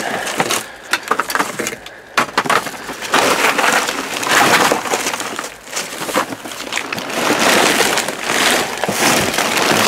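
Hands rummaging through discarded goods in a dumpster: plastic bags, wrap and boxed packaging rustling and crinkling in irregular surges, with a few sharp knocks as items are shifted.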